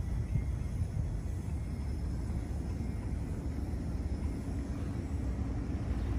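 Steady low outdoor rumble of a city street, with no distinct events standing out.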